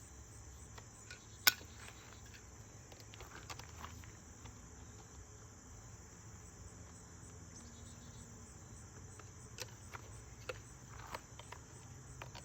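Scattered sharp plastic clicks and knocks from a toy gun and its silencer being handled, the loudest about a second and a half in and a cluster near the end, over a steady high-pitched hiss.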